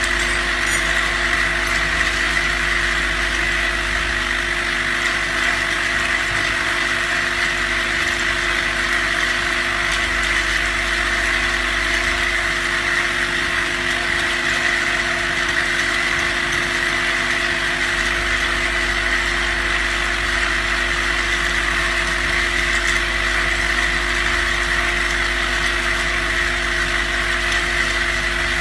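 Vibratory cap (lid) feeding machine running steadily: a constant hum with a dense, even rattle.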